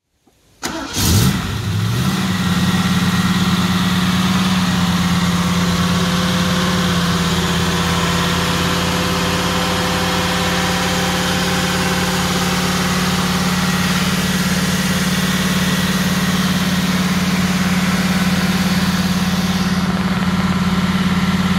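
Triumph Stag's 3.0-litre V8 cold-starting: it catches almost at once about a second in, picks up quickly and settles into a steady idle.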